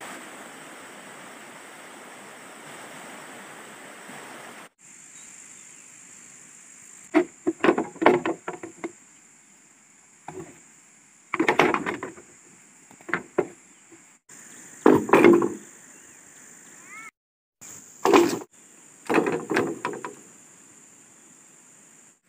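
Bamboo poles knocking against each other: clusters of hollow wooden knocks and clatters, repeated several times. A steady rustling hiss comes before them for the first few seconds.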